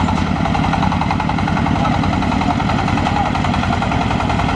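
Engine of the machine hauling a large rice threshing machine uphill, running steadily under load with rapid, even firing pulses.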